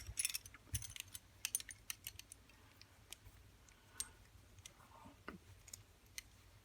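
Small clicks and ticks from a pair of vintage Darby handcuffs being handled: a quick run of clicks in the first two seconds, then a few scattered ticks.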